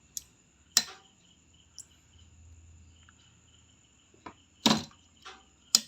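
A run of sharp clicks and knocks from handling and switching on a Samsung CRT television, the loudest two near the end, over a faint steady high-pitched whine.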